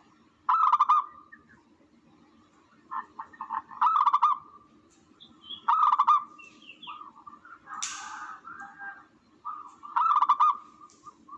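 Tukmo dove calls played as a hunting lure: short, rapid stuttering coos repeated four times a few seconds apart over a steady low hum. A rougher, noisier call comes between them around the eighth second.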